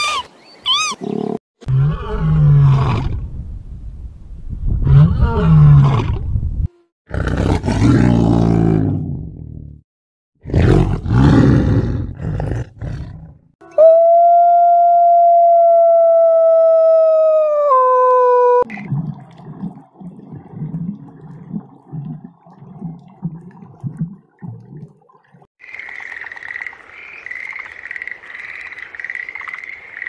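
A run of animal calls. First, koalas bellowing in repeated deep, rasping roars for roughly the first half. Then a wolf gives one long howl of about five seconds that steps down slightly in pitch, followed after some softer low sounds by a tree frog's steady high-pitched call near the end.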